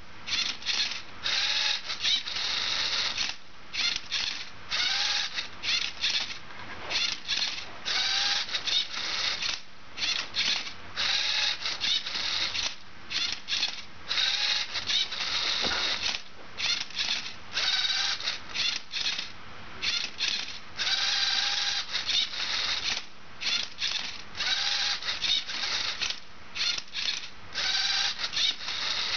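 LEGO Mindstorms MindCuber robot's motors and plastic gears whirring in short stop-start bursts, about one or two a second with brief pauses, each with a short whine that rises or falls, as it turns and flips a Rubik's cube.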